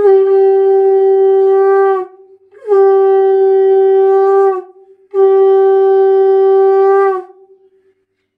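Conch shell (shankha) blown in three long, steady, loud blasts of about two seconds each, with brief breaks between them.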